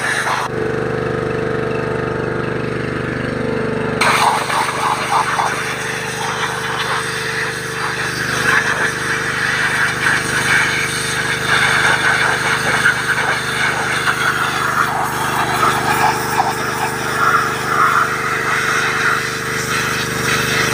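Pressure washer (water blaster) running steadily while its jet sprays a boiled stag skull to strip off the remaining tissue and fat. The hiss of the spray thins for a few seconds near the start, then comes back about four seconds in under the motor's steady hum.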